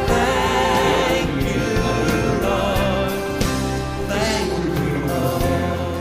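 Christian worship song: a singer holding wavering notes over instrumental backing.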